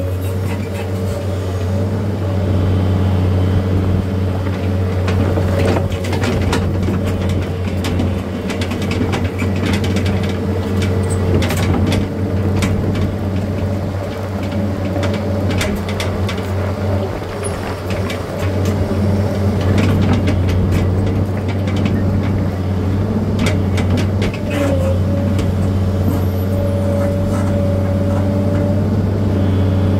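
Engine of a machine levelling stone, running steadily with a deep hum, with scattered clicks and knocks over it.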